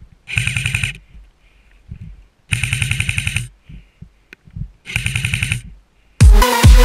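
An airsoft electric gun (AEG) firing three full-auto bursts a couple of seconds apart, the middle one the longest at about a second. Loud electronic dance music cuts in near the end.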